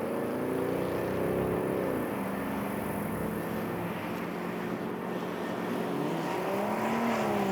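Jet engines of a departing Airbus A330-900neo running under a steady rushing noise, with several tones that drop in pitch about two seconds in and rise again near the end.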